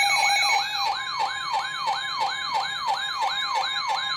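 Electronic siren alarm of a weather alert radio: a quick falling sweep repeated about three times a second over a steady alert tone, which drops back about half a second in. It is sounding for a tornado warning.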